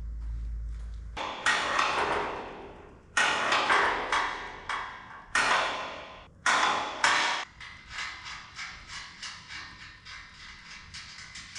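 Steel parts of a welding table clanking as they are handled and adjusted: several sharp, ringing metal knocks, then a run of quicker, lighter clicks that fade. A low hum cuts off about a second in.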